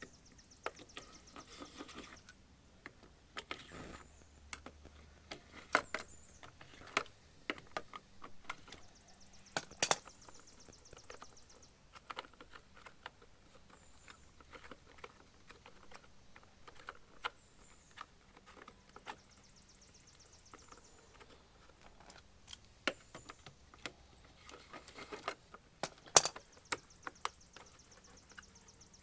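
Scattered small clicks and clatter of plastic lug nut cover caps being unscrewed by hand and handled, with a few stretches of fast, even clicking.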